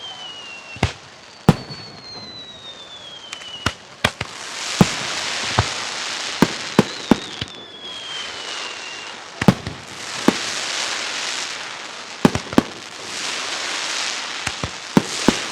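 Aerial fireworks shells bursting in a fast volley of sharp bangs. Whistling shells glide down in pitch three times, and stretches of dense crackling hiss fill the gaps between bursts.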